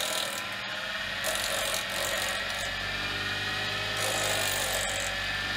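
Small bench grinder's abrasive wheel grinding down a steel stepper-motor shaft: a harsh, steady grinding hiss with a high whine over it. It starts and stops abruptly.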